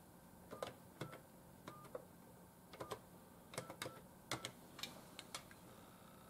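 Keys being pressed one after another on a Western Electric 2500 touch-tone phone's keypad to dial a number: about a dozen sharp clicks, irregularly spaced, several followed by a short touch-tone beep.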